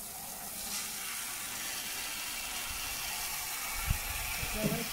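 Garden hose spraying water over a jet ski on its trailer: a steady hiss.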